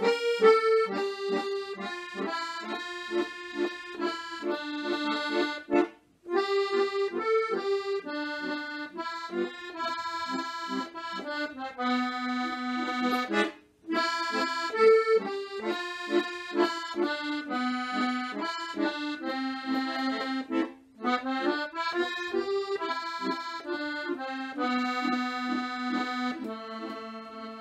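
Chromatic button accordion (a Ramsor) playing a solo melody of separate notes, the phrases broken by three brief gaps, ending on long held low notes.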